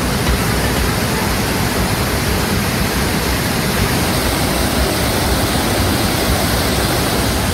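Floodwater rushing over a waterfall and through rocky rapids: a steady, dense rush of water with no breaks.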